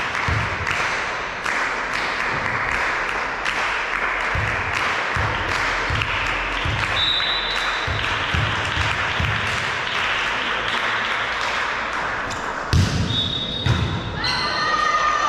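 Spectators clapping in a steady rhythm, about two claps a second, with a low thump in time with each clap. Near the end comes a louder thud, followed by voices calling out.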